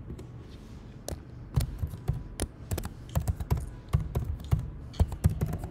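Computer keyboard typing: quick, irregular key taps beginning about a second in and running on, a few strikes louder than the rest.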